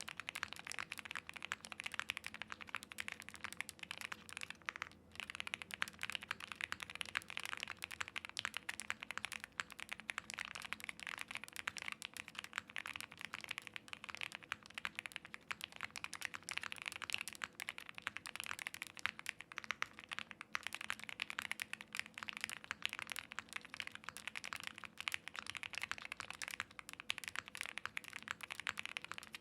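Continuous fast typing on a custom mechanical keyboard: an OwLabs Mr. Suit TKL with lubed Gateron Black Ink V2 linear switches on a POM plate, foam-filled, with GMK Dracula keycaps. The keystrokes run densely, with a brief pause about five seconds in.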